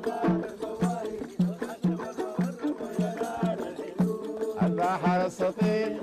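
Sudanese folk song performed by a small group of men: singing, a violin, handclaps and a steady low beat about twice a second.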